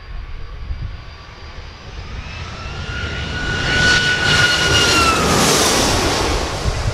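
Boeing 757 jet engines passing low overhead on final approach. The engine whine and rushing jet noise grow steadily louder, then the whine drops in pitch about five seconds in as the aircraft goes past.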